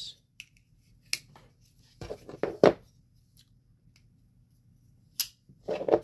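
Handling noise from a small folding knife and other pocket items being picked up and set against each other: a sharp click about a second in, two or three knocks around two to two and a half seconds, and more clicks near the end.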